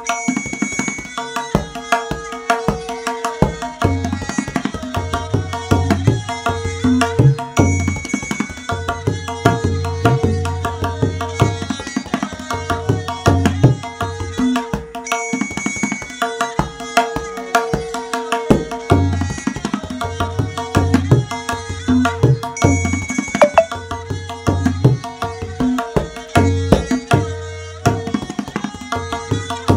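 Tabla played in jhaptaal, the ten-beat cycle, over a lehra: a short melodic loop of held notes repeats about every seven seconds. Over it run quick strokes on the tabla, the deep bayan and the ringing dayan.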